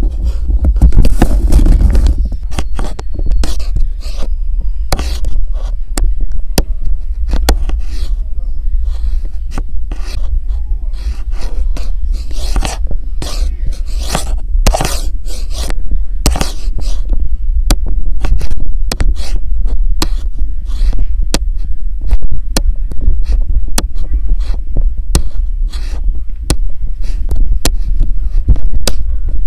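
Microphone handling noise from a hand-held recording device: loud, irregular rubbing and scraping with many sharp clicks over a constant low hum.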